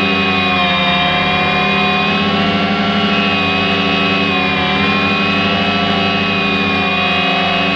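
DJI Phantom quadcopter's electric motors and propellers whining steadily, heard from the camera mounted on the drone; the pitch dips slightly twice as the motors adjust speed.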